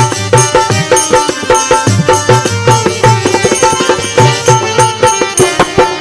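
Harmonium playing a melody of held reed notes over a fast hand-drum rhythm, with no singing: an instrumental interlude of a Bundeli folk wedding song.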